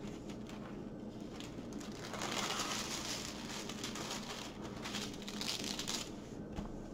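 Clear plastic protective film on a diamond painting canvas crinkling and rustling as it is lifted and smoothed back down by hand. The rustle is strongest in the middle few seconds.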